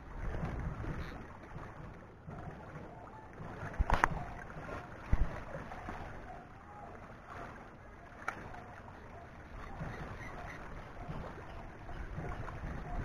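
Wind buffeting the microphone and small waves lapping against a rocky shoreline, with a few sharp clicks about four, five and eight seconds in.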